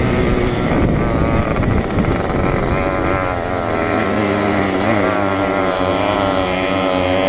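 Small two-stroke Fichtel & Sachs moped engine running hard under racing load. The sound is a rough rush of noise at first, then about three seconds in it settles into a steady, high-pitched engine drone that wavers briefly in pitch near the middle.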